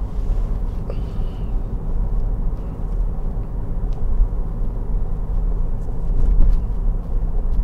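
Steady low rumble of a car in motion, heard from inside the cabin: engine and road noise while driving along.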